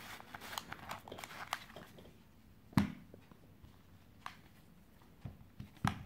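Handling noise from a folded nylon shopping bag being packed into a small round case: fabric rustling and small clicks, then one sharper knock about three seconds in and a few lighter clicks after.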